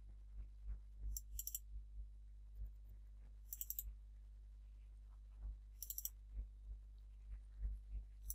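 Faint, irregular short clicks and taps, with three brief clusters of sharp, rapid high-pitched clicks about one, three and a half, and six seconds in, over a low steady hum.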